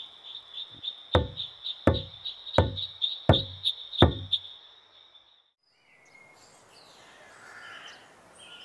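A large barrel drum struck five times, evenly about two-thirds of a second apart, each beat with a short low ring: a drum call summoning the village to a meeting. A steady fast-pulsing insect chirp runs under the beats; after them the sound drops away to faint outdoor ambience with a few bird calls.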